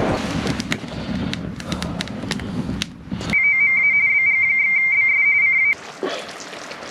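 A rushing noise with scattered crackles gives way, about three seconds in, to a ham radio sounding a loud, high, steady beep tone with tiny breaks. The tone lasts about two seconds and cuts off suddenly, leaving a quieter hiss.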